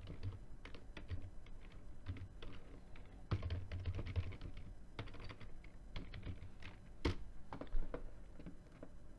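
Typing on a computer keyboard: quick, irregular key clicks, with a few harder strikes among them.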